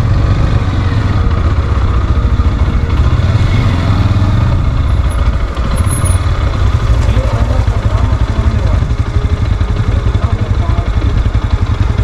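Motorcycle engine idling and running at low speed, a steady low throb.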